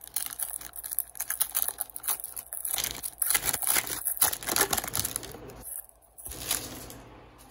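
Wrapper of a 2005-06 Upper Deck Rookie Update hockey card pack crinkling and tearing as it is opened: a dense run of crackles that stops about five and a half seconds in, with one more short crinkle a second later.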